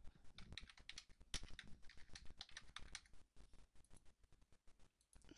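Faint typing on a computer keyboard, a quick irregular run of key clicks.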